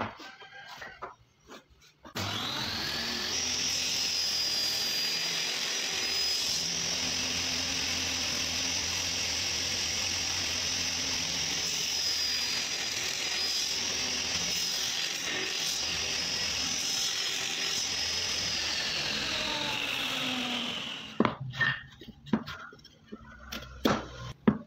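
A table saw is switched on a couple of seconds in, its whine rising as the blade spins up. It runs steadily while a pine block is pushed through the blade on a crosscut sled to cut a notch. Near the end the saw is switched off and winds down with a falling whine, followed by a few knocks of the wood being handled.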